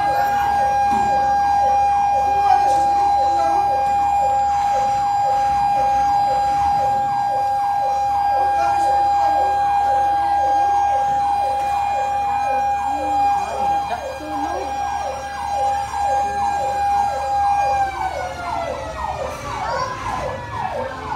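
Fire truck sirens: one holds a steady tone that slowly falls in pitch near the end as it winds down, over a fast repeating yelp of about two sweeps a second. A rising-and-falling wail joins in a few times in the second half.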